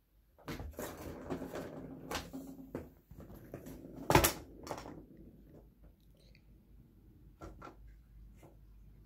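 A cat pawing and scratching at a round cardboard scratch pad inside a plastic track ring: scraping and rustling for the first few seconds, one loud sharp knock about four seconds in, then a few light clicks.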